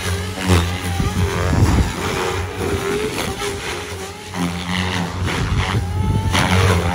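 SAB Goblin RAW 500 radio-controlled electric helicopter flying aerobatics. Its rotor blades buzz and whoosh, and the pitch rises and falls as the blades load up through the manoeuvres.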